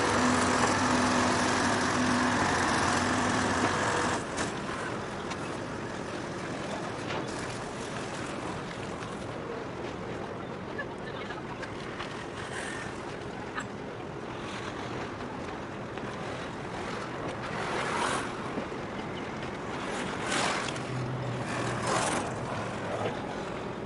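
An engine runs with a steady pitched hum and stops suddenly about four seconds in. After that comes wind and water lapping, with a few louder splashes near the end.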